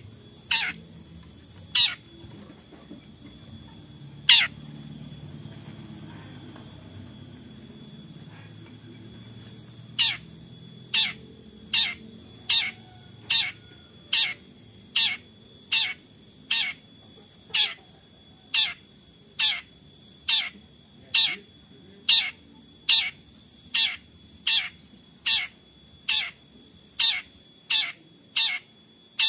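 Long-tailed shrike (cendet) giving its harsh 'toet toet' call, short sharp notes that each drop steeply in pitch. A few come singly at first, then after a pause of about six seconds they run in a steady series of a little over one a second.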